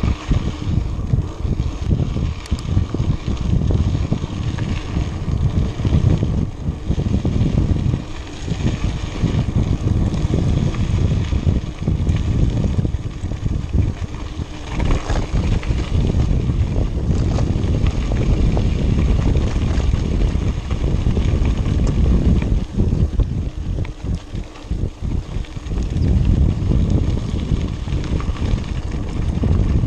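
Wind rushing over the microphone of a camera on a moving mountain bike, with the rumble of the bike's tyres rolling over a rough dirt and gravel road. The noise is steady and heavy in the low end, dipping briefly now and then.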